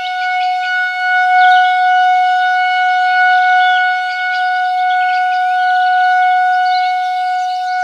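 Synthesized imitation of a Federal Signal 2001-130 outdoor warning siren sounding a test, holding one steady tone without rising or falling. Bird-like chirps run over it.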